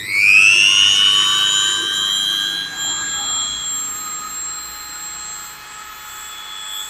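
Electric mini grinder (rotary engraving tool) running at high speed: its whine rises in pitch during the first second as the motor spins up, then holds steady, growing somewhat quieter in the second half.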